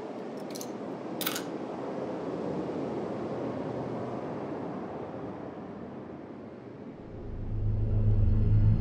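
Horror-film sound design: a low, even noise drone that swells and eases, with two short hissing swishes about a second in. Near the end a deep droning music score rises and grows loud.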